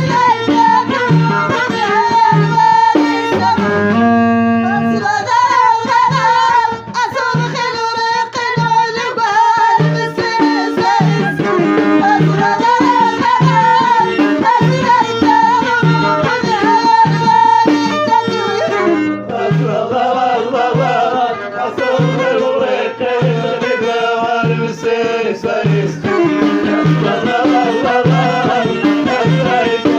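Live Moroccan Middle Atlas folk music: a melody over a steady drum beat of a little under two strokes a second, with singing. The texture changes about two-thirds of the way through.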